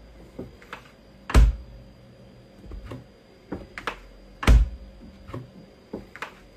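Knocks and thuds of a mini fridge door being swung open and pushed shut by hand. There are irregular light taps, with two louder thuds about a second and a half in and about four and a half seconds in.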